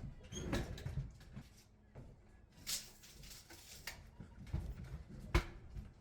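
Irregular knocks, clatter and rustling of hands-on work, the sharpest knock about five and a half seconds in.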